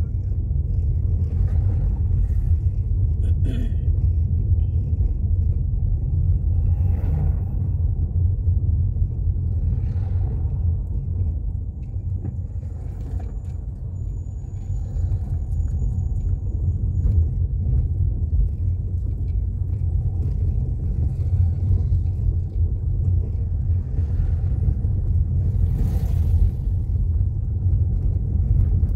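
Steady low rumble of a car on the move, road and engine noise heard from the car, with a few brief swishes, the clearest near the end.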